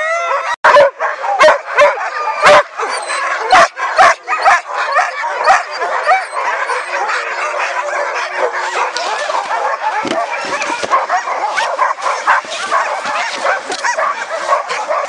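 A pack of harnessed sled dogs barking, yelping and whining all at once, excited and impatient to start pulling. Several sharp knocks cut through in the first few seconds.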